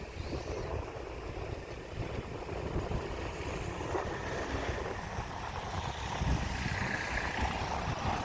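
Wind buffeting the microphone as an irregular low rumble over a steady outdoor hiss.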